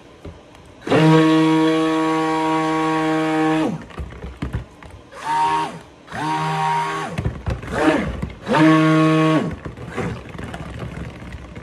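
Stick blender running in a bucket of cold-process soap batter in pulses: one run of nearly three seconds, then four shorter bursts, each speeding up and winding down. It is blending the just-added essential oils into the batter.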